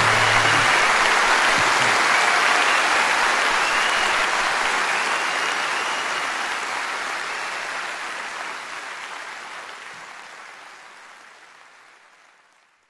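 Live concert audience applauding as the last low guitar notes die away in the first moment; the applause is faded down steadily until it is gone just before the end.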